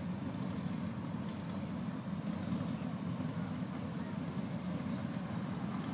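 A group of motorcycle engines idling steadily together.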